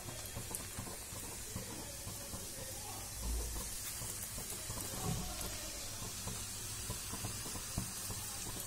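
Pieces of layered maida khasta dough deep-frying in oil on low heat: a steady bubbling sizzle with fine crackling, and a dull bump about three seconds in.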